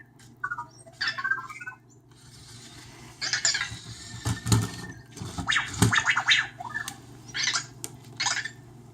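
Anki Vector desk robot moving about: a run of short mechanical bursts of whirring, scratching and clicking, with brief electronic tones, over a steady low hum.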